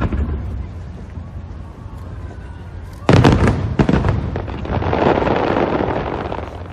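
Aerial fireworks shells bursting: a sudden cluster of loud bangs about three seconds in, followed by a longer stretch of dense crackling that fades near the end.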